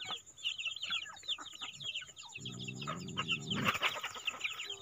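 A mixed flock of free-range chickens calling: chicks peeping constantly in short high calls while hens cluck. About halfway through, a lower drawn-out call rises and falls for about a second.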